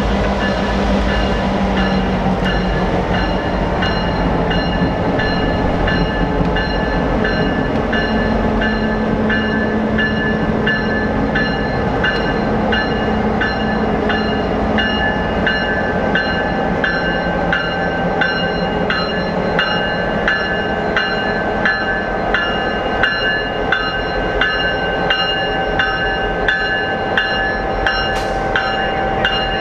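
EMD F-unit diesel locomotives running with a steady low engine drone during a switching move, while the locomotive bell rings in a steady rhythm of strikes.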